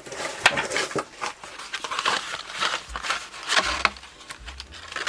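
Paper and card being handled: rustling and crinkling with light taps, as a paper notebook insert is handled.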